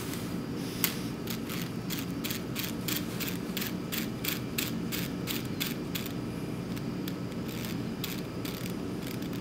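Volume dial of a 0.5–10 µL micropipette being turned down from 5 to 1 microliter: a string of quick ratchet clicks from its detents. The clicks begin about a second in, come in quick runs, and thin out for a moment a little past the middle.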